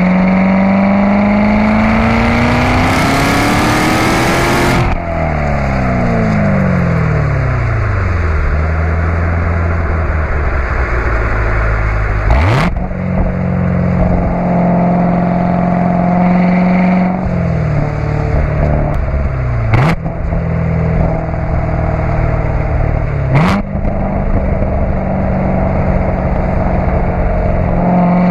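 2016 Corvette C7 Z06's supercharged 6.2-litre LT4 V8 exhaust at the tips in track mode. A full-throttle pull rises in pitch for about five seconds, cuts off suddenly, and the revs fall away. The engine then runs at part throttle, with three sharp rev-matched blips on downshifts, and another pull starts rising near the end.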